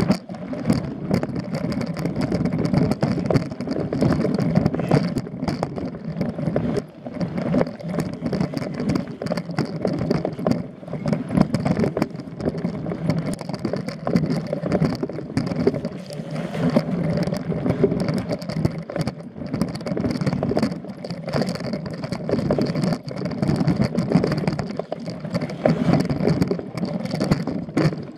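Mountain bike ridden over a dirt singletrack, heard from a camera mounted on the bike: knobby tyres rolling over dirt and roots with constant rattling and frequent small knocks over bumps.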